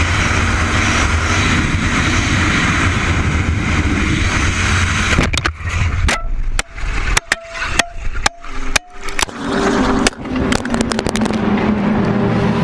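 Steady road and engine noise of a car being driven. About five seconds in, it breaks into a string of sharp clicks and knocks with brief gaps between them.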